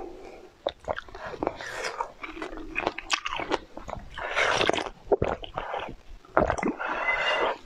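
Close-miked mouth sounds of eating: slurping and sucking green food out of glass test tubes, with three longer slurps between quick wet clicks and chewing.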